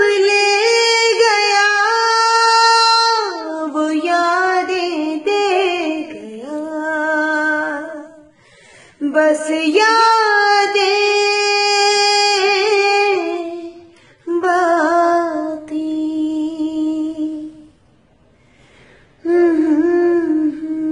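A solo voice singing unaccompanied, with no clear words. It holds long wavering notes in phrases and breaks off briefly about eight seconds in and again near fourteen seconds. A longer pause of a second or so comes before it resumes near the end.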